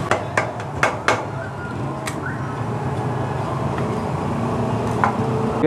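Metal utensils clicking and tapping on a flat-top griddle as shawarma is cooked. There are a few sharp clicks in the first two seconds and another about five seconds in, over steady background noise.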